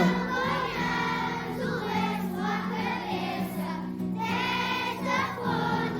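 A group of voices singing together in chorus, held over a steady low note.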